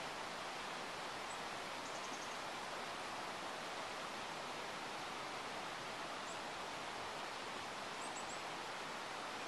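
Steady, even rush of a creek, with faint, very high chirps of small birds: one about a second in, a quick run of four near two seconds, one near six seconds, and three quick ones near eight seconds.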